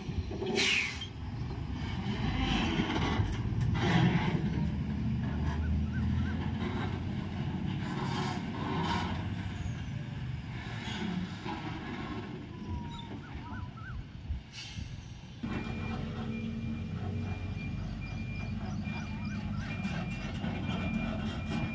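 BharatBenz truck's diesel engine running, with scattered clatters in the first half; about fifteen seconds in the sound changes abruptly to a steadier running note with a thin, steady high tone over it.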